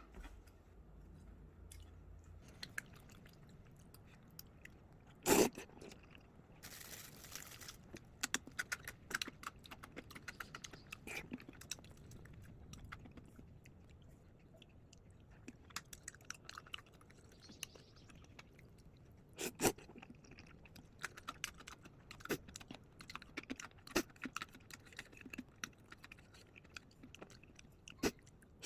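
A person eating close to the microphone: quiet chewing and crunching, with scattered small clicks and a couple of sharper knocks, about 5 and 20 seconds in, like utensils or dishes touching.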